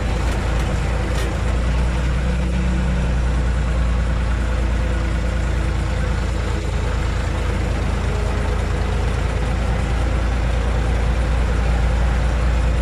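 Tractor diesel engine running steadily at an even speed, with a strong low hum.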